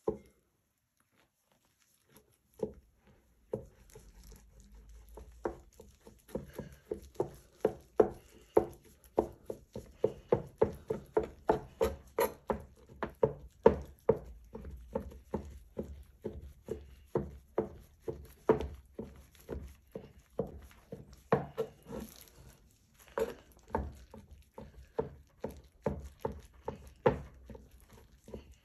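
Large kitchen knife chopping soft roasted eggplant flesh on a plastic cutting board: a steady run of knife strokes, a couple a second, starting about two seconds in.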